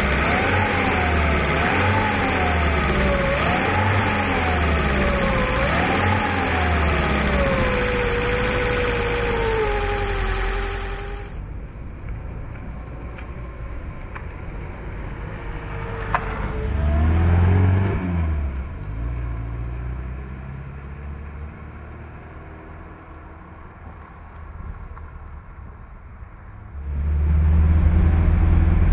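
1971 BMW 1602's 1.6-litre four-cylinder engine being revved with the bonnet open: the pitch rises and falls about every two seconds, then sinks slowly back toward idle. After about eleven seconds the sound cuts to the car driving by, quieter, with a brief swell in the middle. Near the end it is loud and low from inside the car under way.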